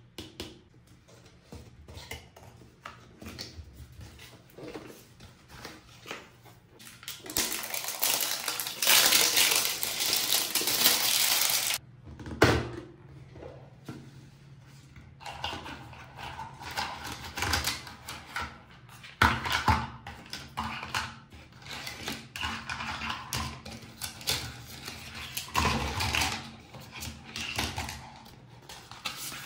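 Small plastic toy kitchen pieces and their packaging being handled: light clicks, taps and clatter throughout. About seven seconds in comes a louder scratchy rustle lasting about five seconds, followed by a sharp knock.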